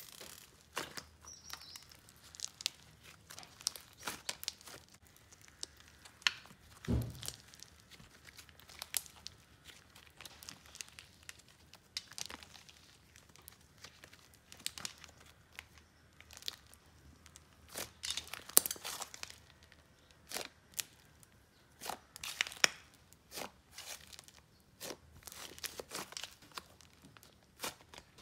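Slime being squished and stretched by hand, giving irregular crackling, popping clicks, with a dull thump about seven seconds in.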